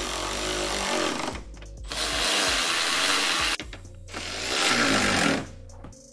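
Cordless electric ratchet running in three bursts of a second or two each, tightening the headlight's mounting bolts.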